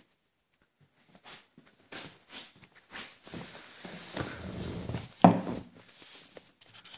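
Handling noise: rustling and light knocks as a hand moves a replica dragon ball and its packaging about on a table, with one sharper knock a little after five seconds in.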